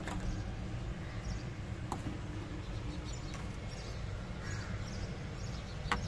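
Quail eggs being picked up off gravelly ground and set into a plastic tray: two light clicks, about two seconds in and near the end, over steady low handling rumble. Faint high chirps run through the background.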